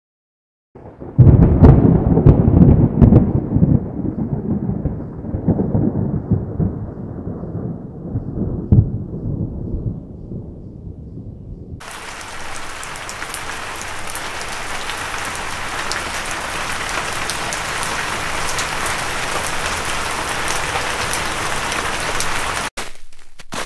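A loud thunderclap about a second in, rumbling and dying away over some ten seconds, followed by steady rain, an even hiss that cuts off suddenly near the end.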